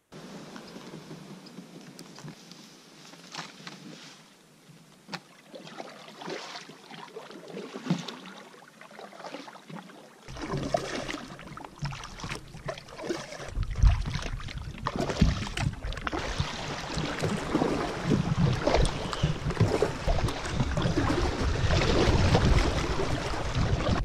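Canoe moving on a lake: water splashing and lapping along the hull with paddle strokes, and wind rumbling on the microphone, strongest from about a third of the way in. Before that, a quieter stretch with a few sharp ticks.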